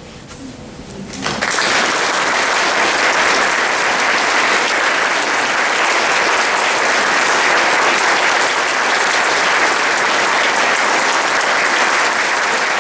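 Audience applauding: the clapping breaks out about a second in and carries on steadily.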